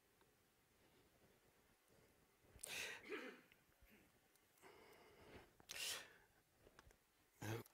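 Near silence of room tone, broken by three short puffs of breath close to a microphone, about three, six and seven and a half seconds in.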